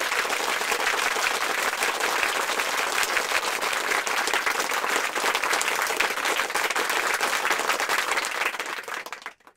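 A crowd applauding: dense, steady clapping that begins abruptly, fades away about nine seconds in and then cuts off.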